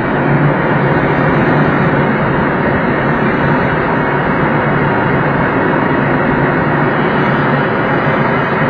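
Steady rush of airflow around a glider's cockpit, with the steady drone of the tow plane's engine ahead during an aerotow.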